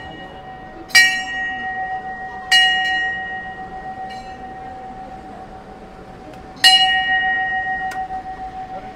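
Hanging brass temple bell struck three times, each strike ringing on in a long steady tone that slowly fades. The strikes come about a second in, a second and a half later, and again near the end.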